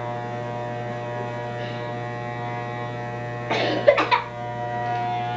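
Electric hair clippers running with a steady buzz. About three and a half seconds in, a young child gives a short crying sob.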